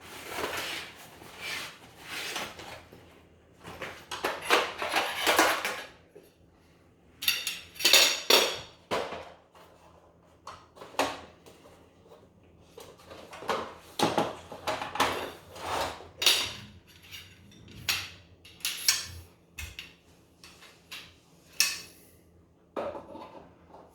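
Parts of a portable pull-up sneeze guard being handled and fitted together: irregular clattering, clicks and knocks with short pauses between them.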